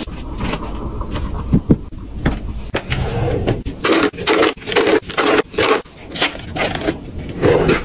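Papery rustling of a disposable cloth being unfolded. Then a quick run of light clicks, taps and crinkles as coffee capsules and sachet packets are handled and set into plastic drawer organizer trays.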